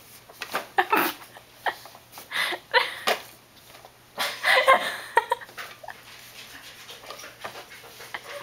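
A toddler's short grunts and vocal sounds while straining to climb onto a plastic ride-on toy, with a longer, louder whiny vocalization about four seconds in.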